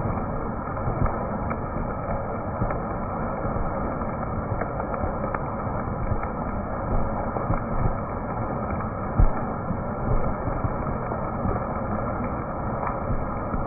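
Heavy rain falling: a steady noise with scattered sharp ticks of drops striking close by.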